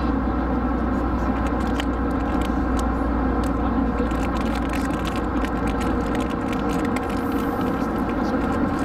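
Steady drone of a jet airliner's cabin in flight, with scattered crackles and clicks of someone eating a dorayaki right at the microphone.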